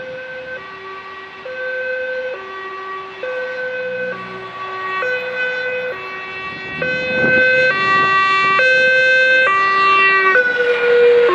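Dutch police car's two-tone siren alternating between a high and a low note, each held just under a second, growing louder as the car approaches. Near the end the notes drop slightly in pitch as it passes.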